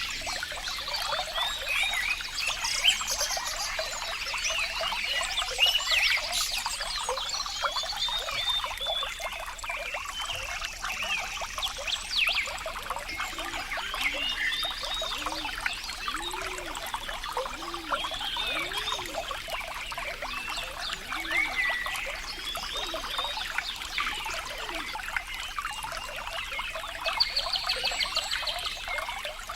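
Water trickling and burbling steadily, full of quick bubbling plops and gurgles.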